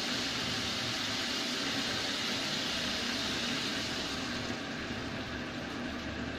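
Ground pork sizzling and simmering in a stainless saucepan: a steady hiss that drops a little about two-thirds of the way through, while more liquid is poured into the pan.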